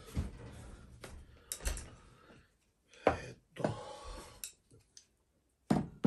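A few separate knocks and thuds with rustling from people settling at a low table and handling the dishes. The loudest knocks come about three seconds in and just before the end.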